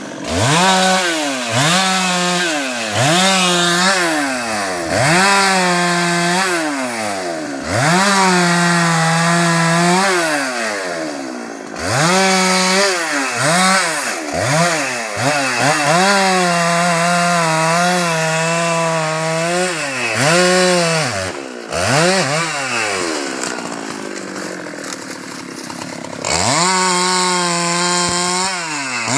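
Husqvarna 390 XP two-stroke chainsaw cutting through a teak log and branches, revving up to full throttle, holding there for a second or two while it cuts, then dropping back to idle, again and again. Between cuts it idles.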